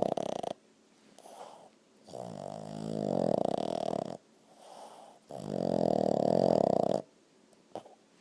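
A sleeping dog snoring: one snore ends about half a second in, then two long snores of about two seconds each follow, with softer breaths between them.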